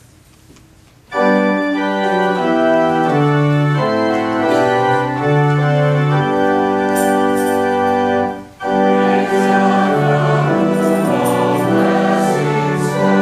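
Organ playing slow, sustained chords. It starts about a second in, breaks off briefly about eight seconds in, then carries on.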